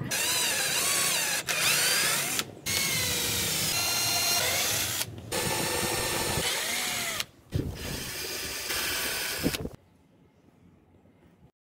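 Handheld power drill boring a hole through a PVC pipe end cap, the motor's pitch rising and falling with the trigger. It runs in several bursts separated by brief pauses and stops about two seconds before the end.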